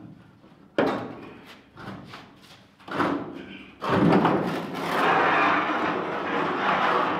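Loose rusty steel bed side from a 1971 Chevy pickup being handled on a concrete floor. The sheet metal thumps down about a second in and clatters around three seconds. From about four seconds on it scrapes steadily as it is dragged.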